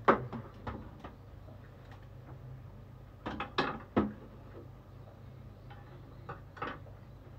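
Kitchen utensils clicking and knocking. One sharp knock comes at the start, a cluster about three to four seconds in and a couple more near the end, over a low steady hum.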